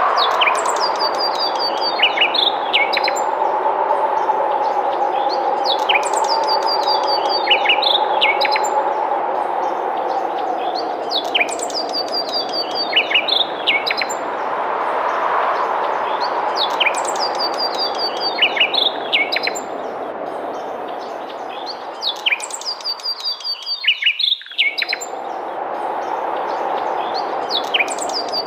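A songbird repeats the same short song about every five seconds: a high falling note, then a quick run of notes that drop lower. Under the song runs a steady rush of wind with a low, wavering whistle, which dips briefly near the end.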